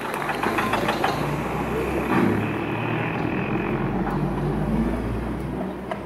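Stadium crowd applause dying away, then a steady low rumble runs underneath until it stops just before the end.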